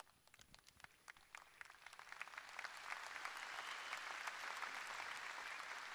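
Large audience applauding: a few scattered claps at first, building within about two seconds into steady, dense applause.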